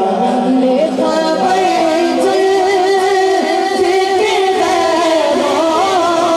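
A boy's voice singing a naat into a microphone: long, ornamented notes that waver up and down in pitch.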